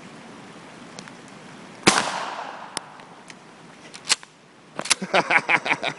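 A single 12-gauge shotgun shot, firing a rubber slug, about two seconds in, with an echo fading over the next second. A sharp click follows near four seconds, and a rapid cluster of sharp sounds comes near the end.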